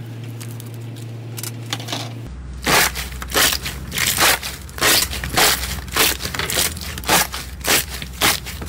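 Blue clear slime, pressed through a wire mesh grid, being squeezed and kneaded by hand. From about two seconds in it gives a dozen loud, sharp crackling squishes, roughly two a second, over a low steady hum.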